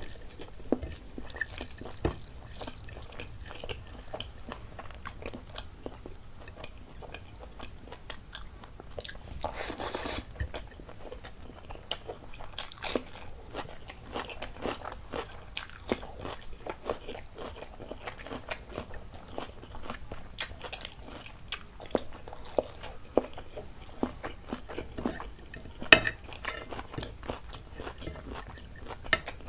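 A person eating close to the microphone: chewing and crunching, with many short sharp crackling bites. There is a longer crunchy stretch about ten seconds in, and one louder crack near the end.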